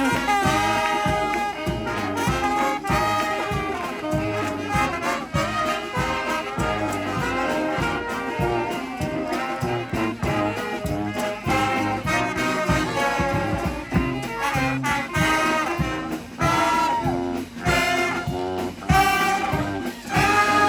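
Street brass band playing an instrumental: horns over a steady drum beat.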